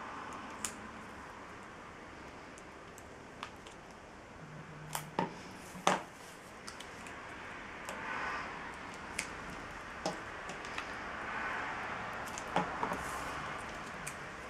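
Scattered light clicks and taps of fingers handling and pressing small cardstock pieces onto a tabletop, with a few soft paper rustles, over a steady room hiss. A quick cluster of sharper clicks comes about five to six seconds in.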